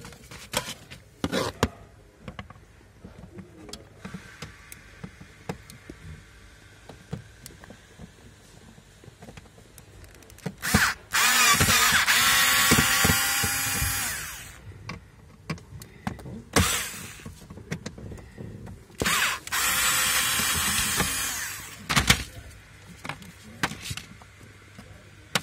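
Electric drill-driver with a socket bit backing out the plastic glovebox-mounting screws under the dashboard. The motor runs with a whine in two spells of about three seconds each, with a short burst between them. Small handling clicks fill the gaps.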